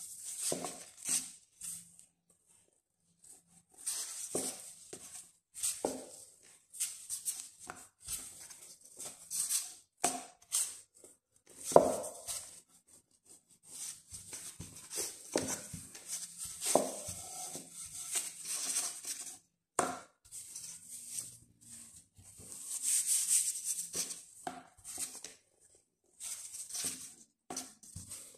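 Wooden rolling pin rolled back and forth over bread dough on a floured wooden board: a run of irregular rustling strokes with short gaps between them and occasional knocks of the pin on the board, the sharpest about twelve seconds in.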